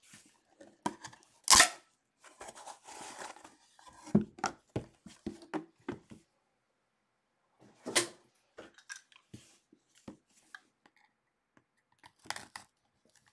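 A sealed trading card box being opened: its plastic wrapper cut and torn off, with clicks and light knocks from the cardboard box being handled. The loudest is a sharp snap about a second and a half in.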